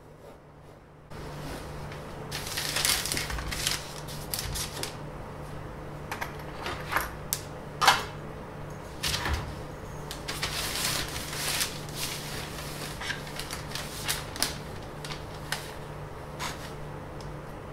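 Drawing tools handled on a paper-covered workbench: irregular clicks, taps and light scrapes as a compass, a steel ruler and a pencil are set down, picked up and laid on the paper, with one sharp knock near the middle. A steady low hum runs underneath from about a second in.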